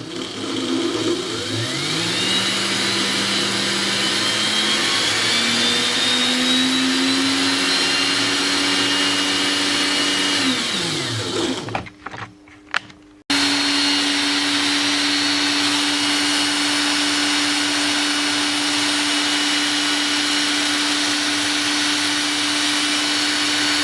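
An 18-volt Ryobi cordless drill motor running on a bench power supply. It spins up with a rising whine, holds steady, winds down and stops about 11 seconds in, then after a couple of clicks starts abruptly at full speed and runs steadily. The motor works when fed directly, bypassing the drill's switch.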